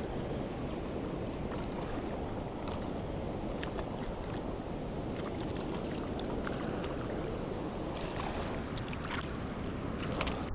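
Steady rush of river water below a dam spillway. From about three seconds in come repeated sharp splashes as a hooked trout thrashes at the surface and is drawn into a landing net.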